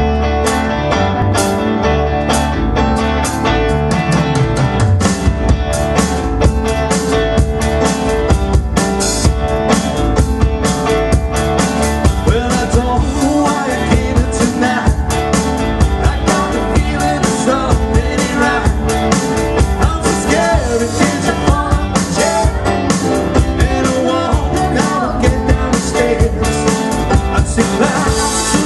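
Live band playing: drum kit keeping a steady beat, with electric guitar, bass guitar and keyboards.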